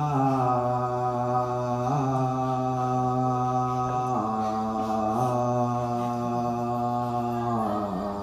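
A man's voice chanting in long, steady held notes, stepping to a new pitch every second or two.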